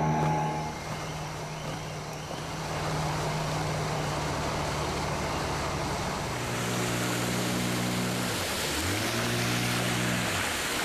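Boat outboard motor running steadily on the river, a low drone that drops in pitch about six seconds in, then briefly dips and picks up again near the end, with rushing water and wind hiss growing in the second half.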